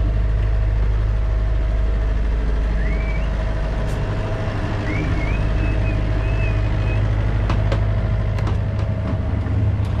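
Sailing yacht's auxiliary engine running steadily under way, motoring for lack of wind, with a constant low drone. A few short, high chirps sound around the middle.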